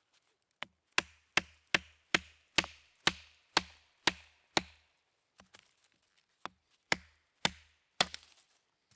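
Knife being batoned through a thin branch: a wooden stick strikes the back of the blade in a run of about fifteen sharp knocks, roughly two a second. The blows are hardest in the first half and lighter after about five seconds in.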